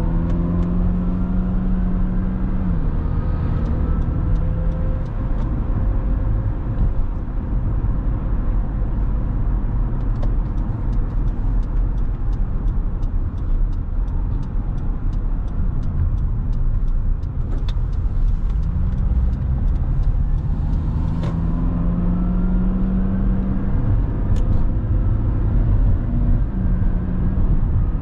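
Car driving, heard from inside the cabin: a steady road and engine rumble. The engine note rises as the car accelerates near the start and again from about two-thirds in, each time stepping down at a gear change. A run of faint, evenly spaced ticks comes through in the middle.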